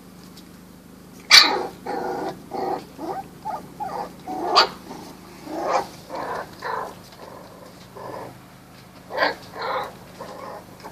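Puppies barking and yipping in short, irregular bursts, the loudest about a second in.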